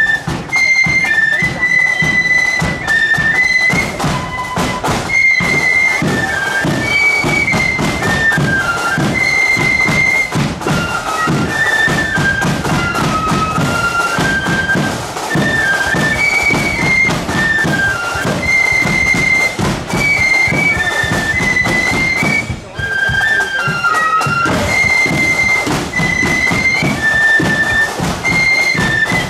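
A marching flute band playing a quick melody on flutes, with drums beating time under it. The tune breaks off briefly a little past two-thirds through, then carries on.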